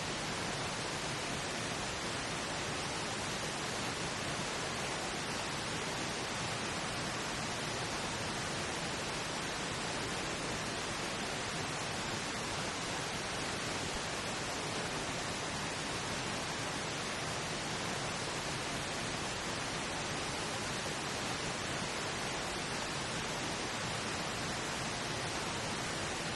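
Steady pink noise: an even, unchanging hiss that masks the layered subliminal affirmation recordings beneath it.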